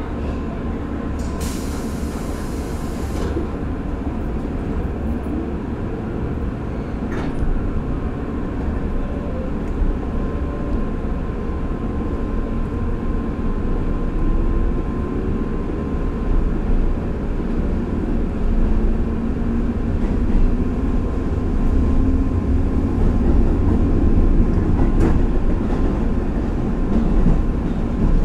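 Inside an electric express train car as it pulls away from a station. A short hiss of air comes about two seconds in, then the low rumble of the car getting under way, with a faint motor whine rising in pitch as the train gathers speed.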